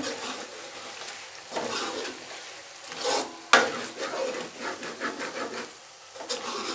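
A long metal spoon stirring and scraping through a thick goat-tripe (ojhri) curry in a metal pot, with a few sharp scrapes against the pot, the loudest about three and a half seconds in, over a faint sizzle of the curry still on the heat.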